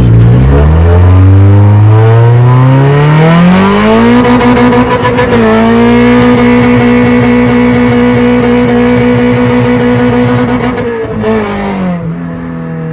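Car engine accelerating hard: its pitch climbs for about four seconds, then holds steady at high revs with a brief dip, and drops away near the end as the throttle eases off.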